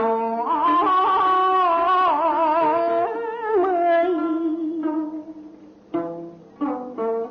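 Background music: a slow melody with strong vibrato over held notes, fading, then short plucked string notes starting about six seconds in.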